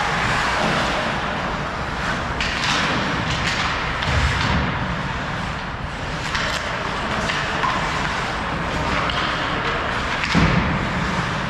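Ice hockey play: a steady hiss of skates scraping the ice, broken by a few thuds, the loudest near the end.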